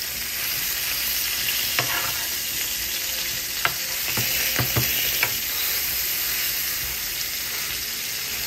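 Chicken breasts sizzling as they pan-fry in oil, a steady hiss. Between about two and five seconds in come a handful of sharp clicks and scrapes from a metal spoon turning the pieces in the pan.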